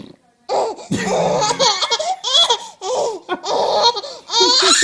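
A baby laughing hard in repeated high-pitched bursts, breaking into laughter about half a second in.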